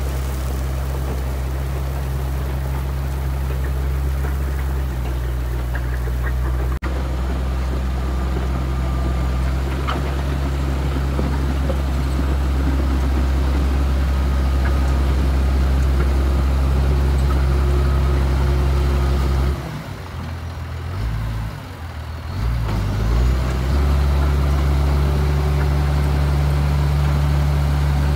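Heavy diesel engines running steadily: first a water tanker truck, then, after a cut, a Komatsu GD525A motor grader working under load as it pushes dirt with its blade. About two-thirds of the way through, the grader's engine note drops and wavers for a few seconds, then rises back to a steady run.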